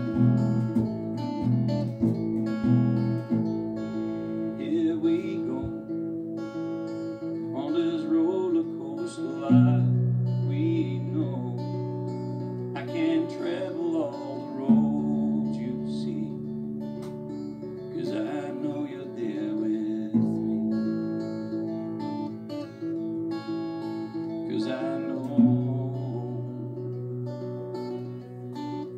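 Acoustic bass guitar plucked with the fingers, playing a slow bass line of long held notes that change every one to three seconds. It plays along with a backing recording of strummed guitar and singing.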